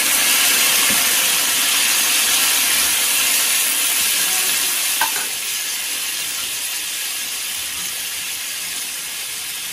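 Food sizzling in hot oil in a frying pan while it is stirred with a spoon. The sizzle is a steady hiss that slowly dies down, with one sharp tap about five seconds in.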